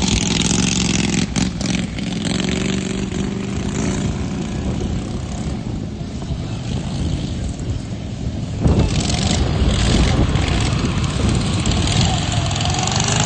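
Racing lawn mower engines running at high revs, with the sound turning suddenly louder and rougher about nine seconds in.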